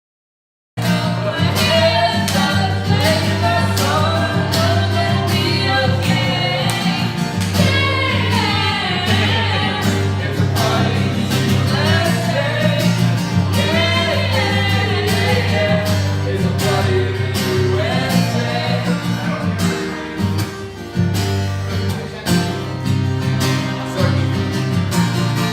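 A song with a singing voice over guitar and a steady beat, starting after a moment of silence less than a second in.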